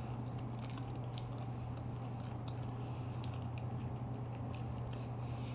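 Faint mouth sounds of someone chewing a light, flaky puff pastry, as scattered small soft clicks over a steady low hum.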